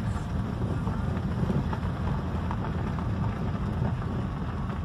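Cabin sound of a Smart ForTwo 450, with its small 0.6 turbo three-cylinder engine, driving slowly along a dirt track: a steady low rumble of engine and tyres on the rough surface, with a few light ticks.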